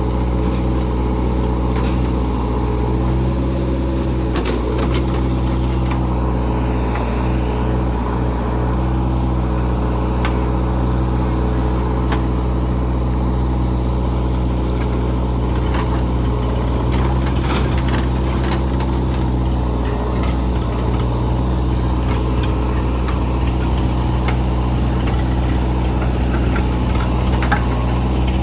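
Heavy diesel engine running steadily at a constant speed, with scattered clanks and knocks over it.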